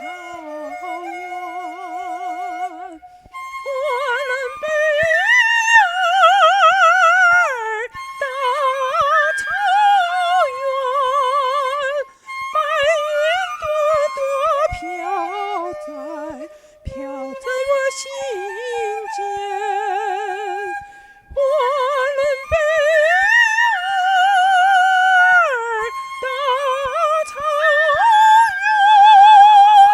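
A high voice singing in an operatic style: long held notes with strong, even vibrato, over instrumental accompaniment. The melody breaks off briefly a few times.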